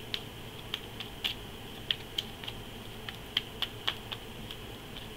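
A deck of Lenormand cards being shuffled by hand: irregular, sharp little clicks and taps of card edges, a few a second.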